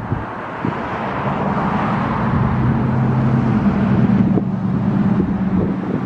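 Whelen WPS-2904 electronic outdoor warning siren sounding its Attack signal in a test, a wavering tone that swells a second or so in and eases toward the end, over a low steady hum and some wind noise.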